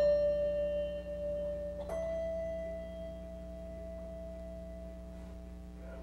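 English handbells ringing: one bell struck right at the start and a slightly higher one about two seconds in, each note ringing on and slowly fading.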